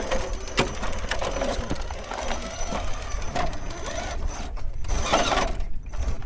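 Vanquish 1/10-scale RC rock crawlers' small electric motors and geared drivetrains whirring as they climb over rocks, with scattered sharp clicks and knocks of tires and chassis on rock.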